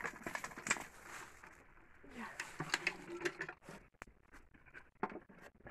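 Hot charcoal being tipped out of a clay-lined jiko onto a metal lid, the pieces clattering and scraping in a run of small knocks, densest at the start and again about two seconds in.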